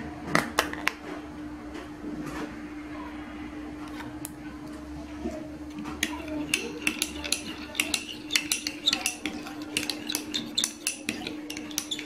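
Metal teaspoon clinking against a small glass bowl while a glaze is stirred: a few separate clinks near the start, then quick, repeated clinks from about six seconds in. A steady low hum runs underneath.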